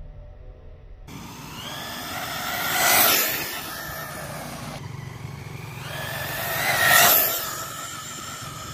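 ZD Racing 1/10 electric RC monster truck speeding past twice, its motor whining over the hiss of its tyres on asphalt; each pass swells to a peak and fades, the whine rising and then dropping in pitch as it goes by.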